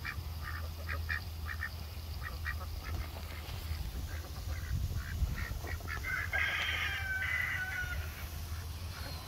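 Domestic ducks quacking softly in short, repeated calls, with a louder run of calls about six seconds in.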